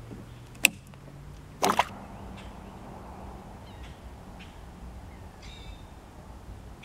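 Handling noise as a tenkara rod is cast from a plastic kayak: a sharp click, then about a second later a brief, louder knock and rustle. After that comes quiet open-air background with a few faint bird chirps.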